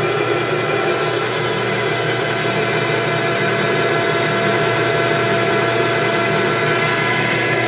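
Vectrax 14-inch by 40-inch bench lathe with its 2-horsepower motor running and the longitudinal power feed engaged in the opposite direction, the carriage traversing: a steady mechanical hum with several constant whining tones from the drive and gearing.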